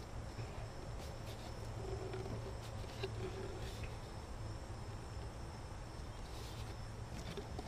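Faint outdoor background: a steady high insect trill over a low hum, with a few light taps and clicks scattered through.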